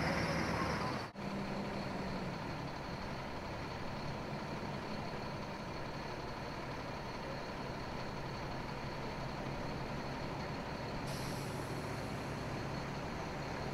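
Military vehicles' diesel engines idling steadily, a continuous low hum, with a brief dropout about a second in.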